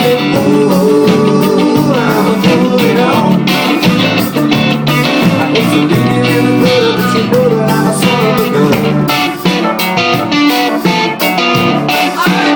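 Live band music led by guitar, an instrumental passage with a steady beat.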